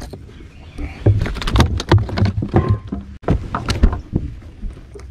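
A quick run of knocks, thumps and clatter on a boat deck, from about a second in until about four seconds in, as a bass is set on a bump board to be measured.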